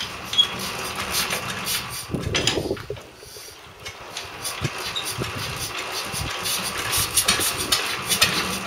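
Lister D single-cylinder four-stroke engine on a cement mixer being started by hand, clattering and firing unevenly rather than settling into a steady run.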